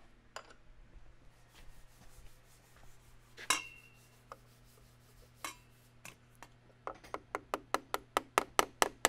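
Light taps on the top of a screwdriver to drive a part out of a shotgun action: near the end, a fast, even run of sharp taps, about five a second, getting louder. Before that come a few scattered clicks and one ringing clink.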